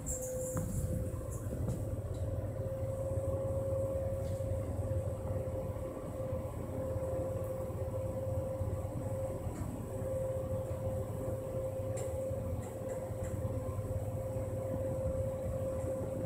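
Hitachi G-Select rope-type (traction) passenger elevator running downward, heard inside the cab: a steady low rumble of travel with a constant mid-pitched hum over it.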